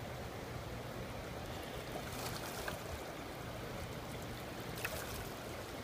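Water lapping and washing against shoreline rocks, with a few brief splashes, one about two seconds in and a louder one near the end, as a striped bass thrashes at the surface in the shallows.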